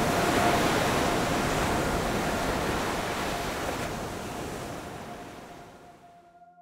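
Steady rushing noise that fades away over the last two seconds or so, with faint held tones of ambient music beneath it.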